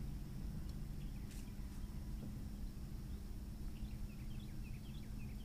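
Small birds chirping, a run of short high chirps in the second half, over a steady low rumble. A single faint click sounds about a second in.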